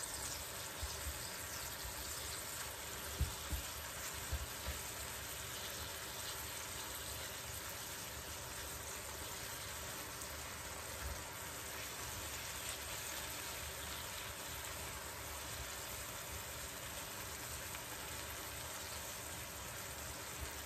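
Apple slices sizzling steadily as they caramelise in a frying pan, with a few light taps of a spatula against the pan a few seconds in.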